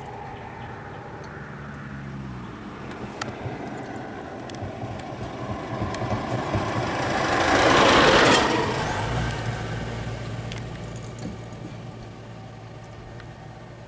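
Vehicle engines running at low speed on a road, while a passing vehicle's noise swells to a peak about eight seconds in and then fades. A steady low engine hum carries on underneath.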